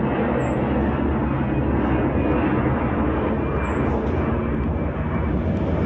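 Airbus A321-211 airliner flying overhead, its CFM56-5B turbofan engines giving a steady, even jet drone that neither rises nor falls.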